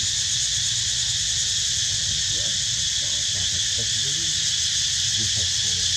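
Steady, high-pitched chorus of insects with no break, over faint low intermittent sounds.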